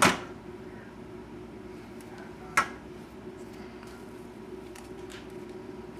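Silicone spatula folding chocolate mousse in a stainless steel mixing bowl: soft scrapes, with two sharp knocks against the bowl, one at the start and one about two and a half seconds in.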